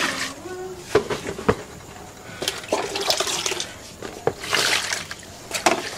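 Tiger nut milk being poured from a bowl through a cloth strainer into a bucket, then water splashing and sloshing as the bag of pulp is rinsed and squeezed by hand. A few sharp knocks of the plastic bowls come in between.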